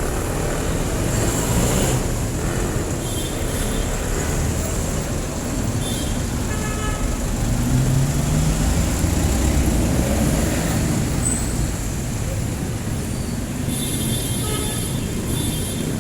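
Street traffic dominated by jeepney diesel engines running, one swelling louder as it passes about halfway through.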